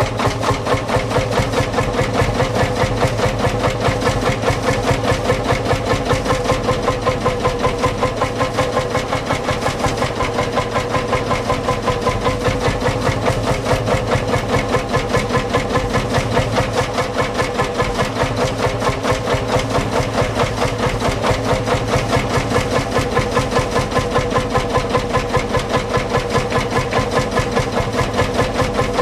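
Old farm tractor engine idling steadily, with an even, slow beat of about three to four pulses a second.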